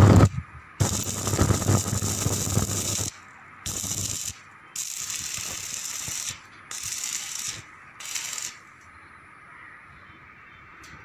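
Electric arc welding on steel bars: the arc crackles and hisses in a run of short welds, about five bursts of one to two seconds with brief gaps, stopping about eight and a half seconds in.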